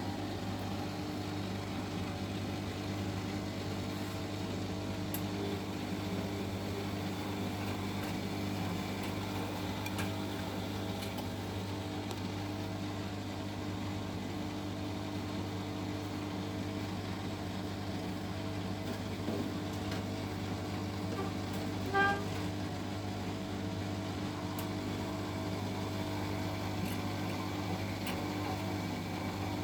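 Siemens washing machine in its anti-crease phase after a silk wash: a steady low hum with no rhythm, and a brief high chirp about 22 seconds in.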